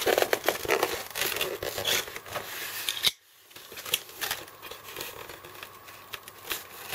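Razor blade cutting open a polystyrene foam box while hands handle it: scratchy cutting, rubbing and crackling of the foam. The sound breaks off suddenly for a moment about three seconds in.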